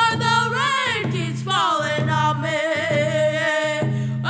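Two boys singing a Native American round dance song together, beating hand drums in a steady, ringing beat a little more than once a second. Their voices slide down in pitch and then hold a long note.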